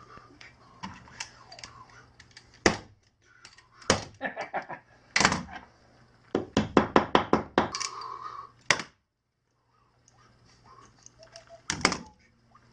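Staple gun fastening a recliner's back cover: sharp single clacks a few seconds apart, with a quick run of about nine taps a little past the middle.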